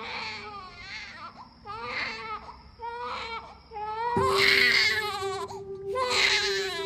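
A baby crying in repeated wailing cries, about one a second, growing longer and louder after about four seconds. A low held musical note comes in underneath at that point.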